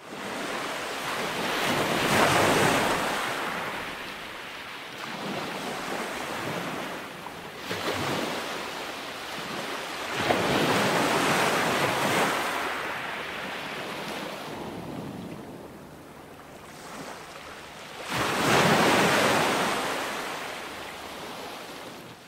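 Ocean surf: waves swelling up and washing out in a steady hiss, with three big surges several seconds apart and smaller swells between them.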